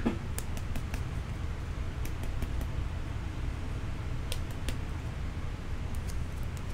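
Steady low room hum, like a fan or air conditioner running, with scattered faint light clicks and ticks on top.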